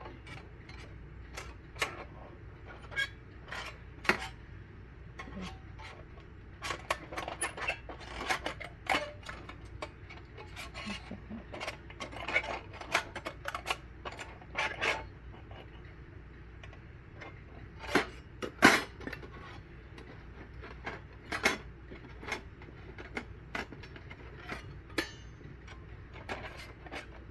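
Metal parts of a folding portable barbecue stand being fitted together by hand: scattered clicks, clinks and clanks of thin metal pieces, a few louder knocks near the middle.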